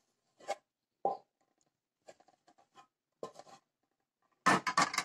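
Wooden spoon scraping and knocking inside a pot as thick cooked polenta is scraped out into a glass baking dish: a few soft knocks, faint small clicks, then a louder quick run of scrapes and knocks near the end.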